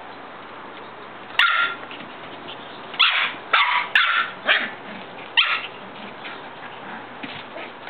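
Shetland sheepdog puppies yapping: six short, high yips, one about a second and a half in, then five in quick succession about three seconds in.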